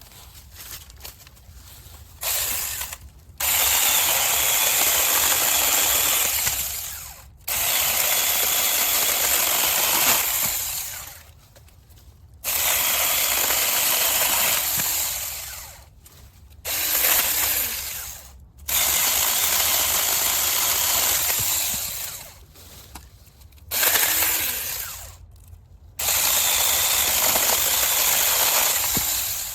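Saker 6-inch cordless electric mini chainsaw run in repeated bursts, starting and stopping about eight times, with several bursts fading away as it stops.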